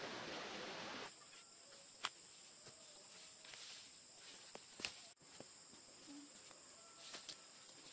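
A steady rushing hiss that cuts off abruptly about a second in. After it, forest insects buzz steadily at a high pitch, with a few sharp snaps and ticks scattered through.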